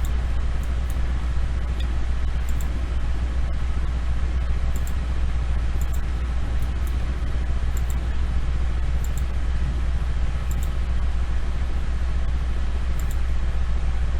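Steady low hum of background noise, with faint, short clicks scattered through it, a dozen or so over the stretch, from a computer mouse being clicked.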